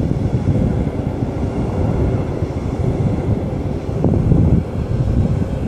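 Intermodal freight train passing on the adjacent track, its wagons loaded with semi-trailers and containers: a loud, steady low rumble of wheels rolling over the rails, swelling briefly about four seconds in.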